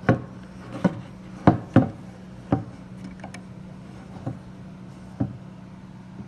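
A small metal hex key clicking and clacking irregularly against a bolt head and wooden rack as it is turned by hand to tighten the bolt, about seven sharp clicks in six seconds, the loudest about one and a half seconds in.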